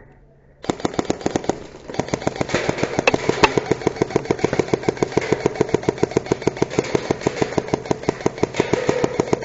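Airsoft electric gun firing full-auto in one long sustained stream. The gearbox cycles in a rapid, even rhythm of shots over the motor's whine. It starts about a second in, falters briefly, then keeps going without pause.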